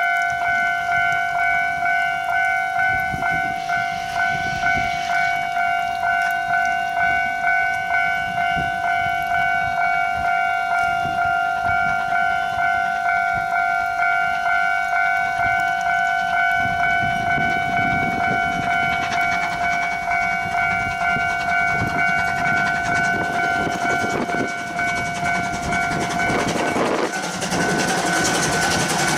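A railway level-crossing alarm rings in a fast, even rhythm while JNR Class C12 tank steam locomotive C12 66 approaches working, its exhaust beating under the bell. The alarm stops a couple of seconds before the end, and the locomotive and coaches roll past close by.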